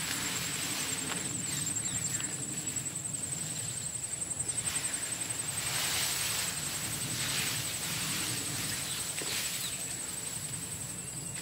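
Wild Sri Lankan elephant rustling and tearing through tall grass as it pulls at it with its trunk to feed, over a steady high-pitched insect drone.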